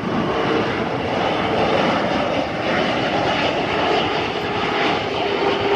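Boeing 787 Dreamliner's jet engines heard as it passes low on its landing approach: a loud, steady rush with a faint steady whine.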